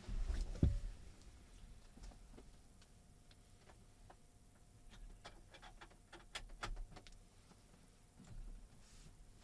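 Faint clicks and knocks from an HDMI lead being moved to another input on a TV: a couple of low knocks at the start, then a quick run of sharp clicks about five to seven seconds in.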